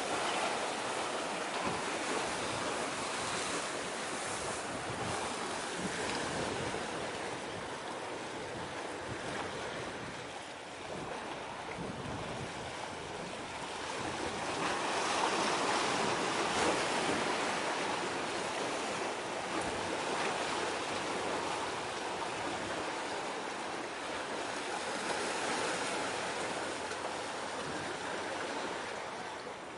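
Sea waves washing with wind across the microphone: a steady rushing noise that swells about halfway through.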